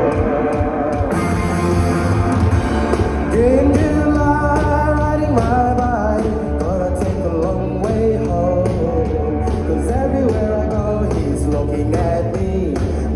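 Rock band playing live, drums and bass steady underneath, with a sung lead vocal that comes in about three and a half seconds in.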